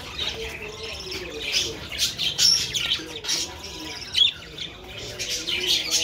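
Several budgerigars chirping and chattering together, a busy mix of short, high chirps and squawks from the flock.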